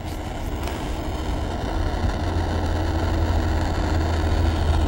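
Hand-held propane torch on a Coleman propane cylinder burning steadily: a rushing noise with a low rumble that grows slightly louder. A small steel gun part is being heated in the flame to temper-colour it through straw toward blue.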